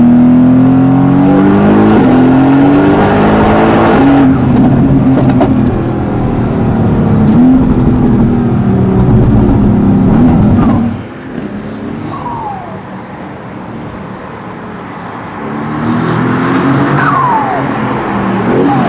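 Mercedes-AMG GT S twin-turbo V8 accelerating hard, its revs climbing and breaking at several quick upshifts. About eleven seconds in the throttle lifts and the turbo whistle falls away in pitch a couple of times, before the engine pulls again near the end.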